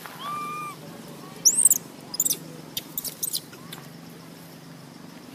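A baby long-tailed macaque crying. There is one short drawn-out whimper near the start, then sharp, very high squeaks about one and a half and two seconds in, followed by a few light clicks.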